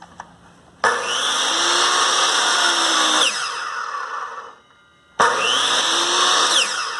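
Hitachi C8FB2 miter saw's brushed motor switched on twice. Each time it spins up with a rising whine, runs briefly (about two and a half seconds, then about one and a half), and winds down with a falling pitch when the trigger is released. The saw is running again on freshly fitted carbon brushes after failing to turn on with worn ones.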